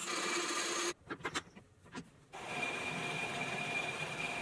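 A twist drill cutting into an aluminium block runs for about the first second, then cuts out to quiet with a few clicks. About two and a half seconds in, a metal lathe takes over, boring out a spinning aluminium part with a steady high whine.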